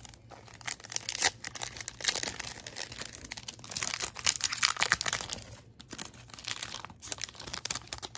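Wrapper of a Topps Chrome baseball card pack crinkling and tearing as it is opened by hand, in uneven stretches of crackling with a short lull about six seconds in.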